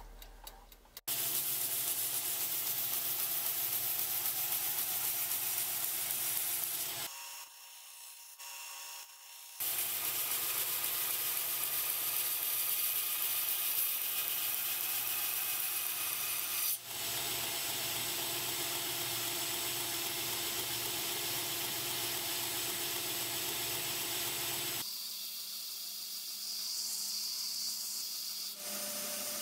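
Belt grinder grinding a Bowie knife blade: the abrasive belt runs with a steady, even grinding noise as the steel is pressed against it, in several stretches that change abruptly, with a thinner, quieter spell about seven seconds in and another change near the end. In the first second, a mechanical oven timer ticks.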